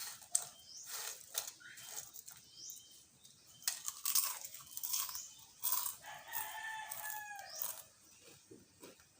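Crisp potato chips crunching and crackling as they are bitten and chewed close to the microphone. A drawn-out pitched call sounds in the background for about a second and a half, about six seconds in.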